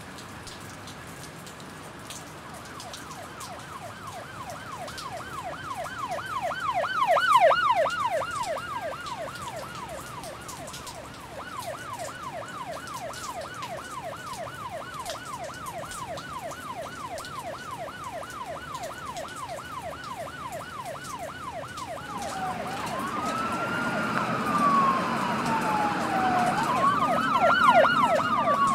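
Emergency vehicle siren in a fast yelp, about three or four rises a second, loudest about a quarter of the way in, then switching to a slower rising-and-falling wail near the end, over steady rain.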